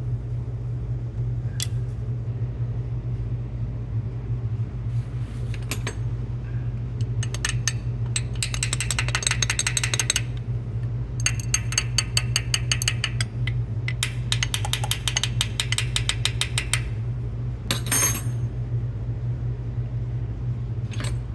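Kawasaki Z650 air-cooled inline-four engine idling steadily, with several bursts of rapid, even clicking lasting a few seconds each, partway through and towards the end.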